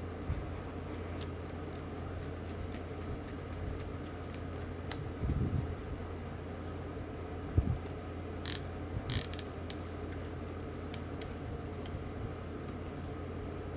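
Small metallic clicks and ticks as the star drag of a Penn 320 GTi conventional fishing reel is fitted and turned on, with a few louder knocks of the reel being handled partway through, over a steady low hum.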